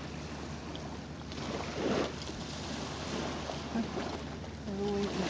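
Small waves washing on the sand and water splashing as blacktip reef sharks thrash in the shallows, with wind on the microphone; a louder splash about two seconds in.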